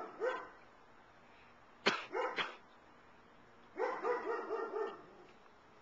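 Animal yelping calls in three bouts: a single yelp at the start, a sharp crack followed by two yelps about two seconds in, and a run of quick yelps about a second long near the end.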